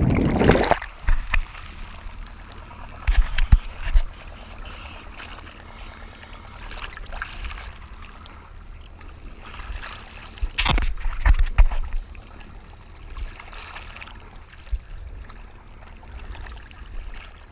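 Rush of bubbles from a diver's jump into the sea dying away in the first second, then waves sloshing and splashing against a mask-mounted GoPro bobbing at the surface. There are louder splashes around three to four seconds in and again around ten to twelve seconds.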